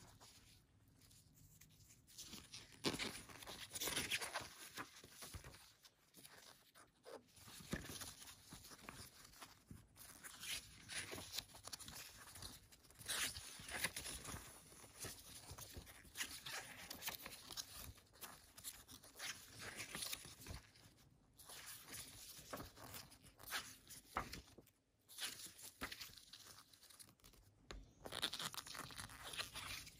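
Soft, irregular rustling and crinkling of a glossy paper CD booklet as its pages are handled and turned by a gloved hand.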